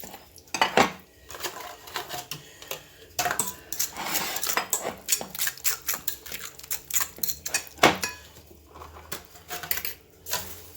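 A spoon clinks and scrapes against a mixing bowl as flour is scooped into the dough, with irregular clicks, a scratchy stretch partway through and a couple of louder knocks.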